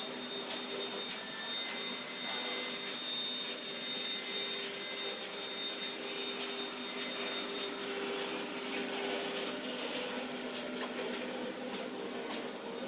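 Paper tube making machine running: a steady mechanical hum with sharp clicks repeating about twice a second.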